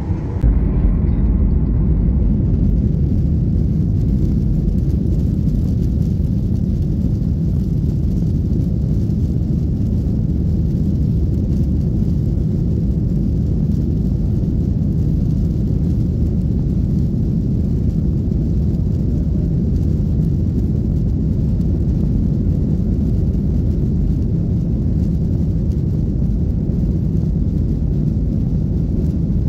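Jet airliner's engines and wheels making a steady low rumble, heard inside the passenger cabin as the plane rolls along the runway. The rumble gets louder about half a second in.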